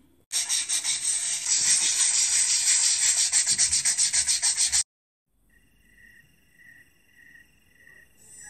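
Scrubbing sound effect: a sponge rubbed hard and fast back and forth, in quick even strokes for about four and a half seconds, then cut off abruptly. Faint, evenly spaced chirps follow, about two a second.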